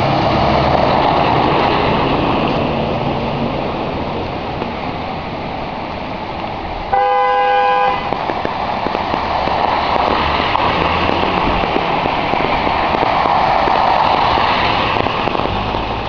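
Cars driving through a flooded street, their tyres splashing through standing water. About seven seconds in, a car horn honks once for about a second, the loudest sound.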